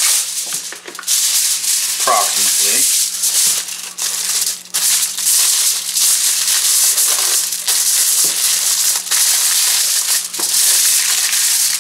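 Aluminium foil crinkling and rustling as it is folded and rolled by hand around an ear of corn.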